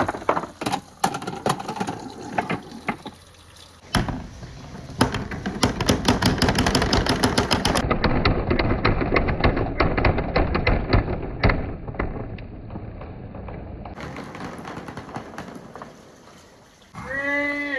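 Marbles rolling and clattering down a marble run track: scattered sharp clicks at first, then a dense, continuous rattle of many marbles from about four seconds in, thinning out after about fourteen seconds. A brief voice is heard near the end.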